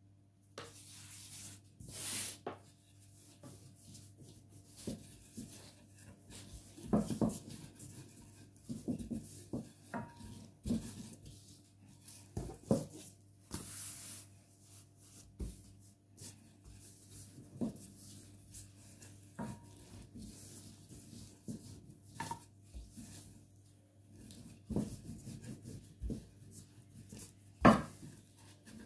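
Hands and a rolling pin working a ball of dough on a floured, cloth-covered table: irregular soft rubbing and light knocks, a few of them louder, with the loudest near the end.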